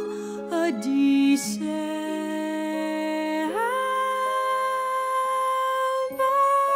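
Sung music: a woman's voice holding long notes over soft orchestral accompaniment. About halfway through, a note slides up and is held for a couple of seconds.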